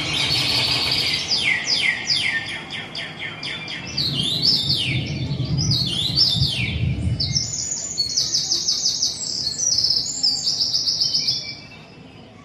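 Birds singing: rapid high trills and repeated downward-sweeping chirps, one after another, over a low background hum. The birdsong stops abruptly about a second before the end.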